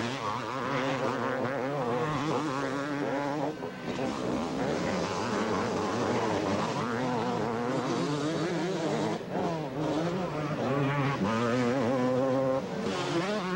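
Several two-stroke motocross bikes racing, their engines revving up and down as they pass, with a brief dip in the noise about three and a half seconds in.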